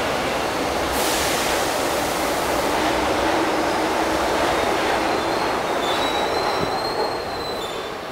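São Paulo Metro trains running along an elevated viaduct: a steady, loud rush of wheels on rail. A thin, high wheel squeal comes in about five seconds in, and the noise fades near the end as the trains move off.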